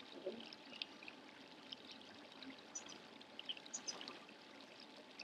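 Faint trickling water, with scattered small drips and ticks over a low steady rush.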